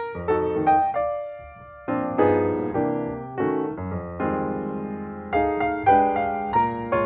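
Background piano music: a gentle melody over chords, each note struck and fading away, with a brief quieter pause about a second and a half in.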